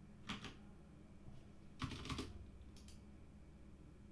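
A few quiet plastic clicks of computer mouse buttons, mostly in press-and-release pairs: about half a second in, a cluster near two seconds, and a pair near three seconds.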